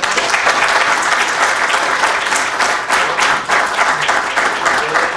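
An audience applauding. The clapping breaks out all at once and holds steady and dense.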